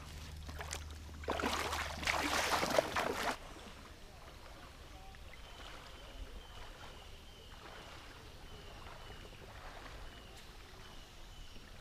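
Shallow river ambience: a loud rush of water noise for about two seconds, starting about a second in, then a quiet background of flowing water with a faint short high note repeated about twice a second.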